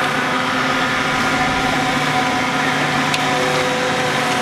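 Steady machine drone with several held tones, like an engine running at idle, with a brief sharp click about three seconds in.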